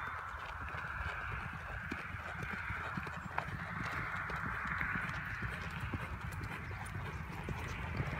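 Hoofbeats of an unshod paint mare on the move: a steady run of short, irregular thuds and clicks over a constant hiss.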